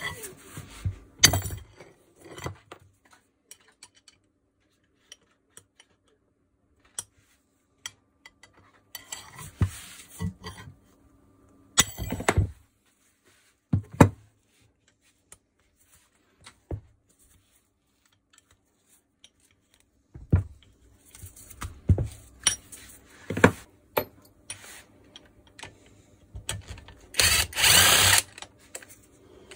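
Scattered metal clinks and knocks of an Allen key and loose tools being handled against the metal barrel housing of a Makita HM1307C demolition hammer while its bolts are undone. Near the end a power drill-driver runs for about a second.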